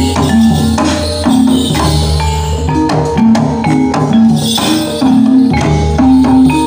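Javanese gamelan music accompanying a gedruk dance: metallophones play short, repeated ringing notes over drums in a steady, driving rhythm.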